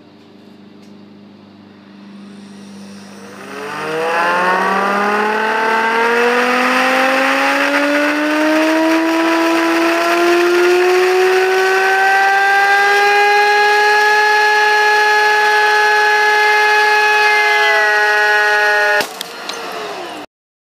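Vacuum cleaner motor, fed through a variac, spinning a CD on its shaft. It hums low at first, then gives a loud whine that rises in pitch for several seconds as the variac turns it up, and holds high and steady. Near the end a sharp crack as the CD bursts apart, and the whine drops away.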